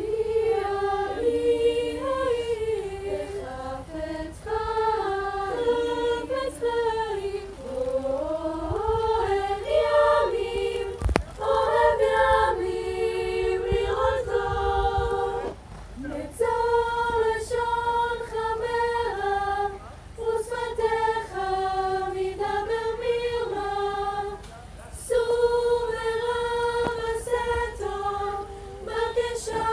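Youth choir singing a cappella, several voices in harmony holding long, steady notes.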